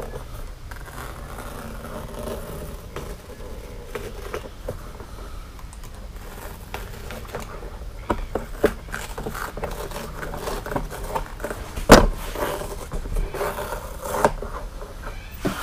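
Utility knife blade scraping as it scores through the foam padding around a door panel's speaker hole, then the foam being torn away from the vinyl underneath in the second half, with sharp ripping clicks and one loud snap near the end.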